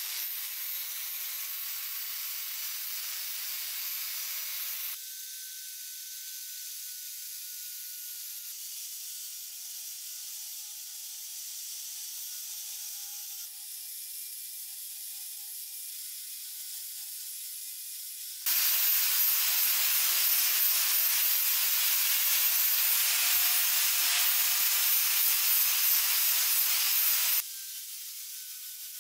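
Angle grinder with an abrasive disc grinding rusted iron: a hissing grind over a steady motor whine. The loudness jumps abruptly several times and is loudest over a stretch in the second half.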